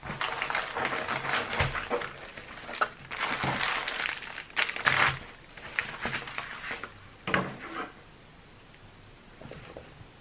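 Plastic film and packaging crinkling and rustling as hands smooth a plastic-covered diamond painting canvas and handle a bag of drills, with a few sharp clicks. It dies down about three-quarters of the way through.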